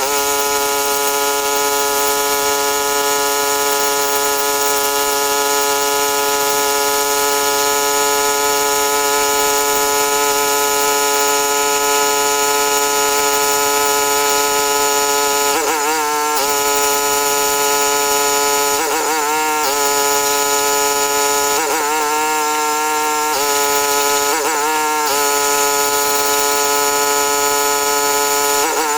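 Pressure washer running steadily with a machine hum. Its pitch dips and wavers briefly several times.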